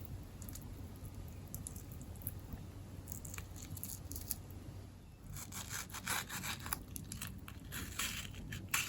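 Hand scraping in food preparation: faint at first, then a run of quick, short rasping strokes from about five seconds in.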